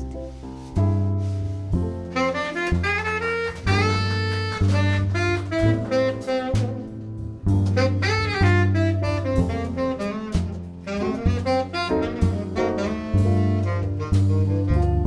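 Live jazz band playing an instrumental solo break: a melodic lead line over bass and drums, with no vocal.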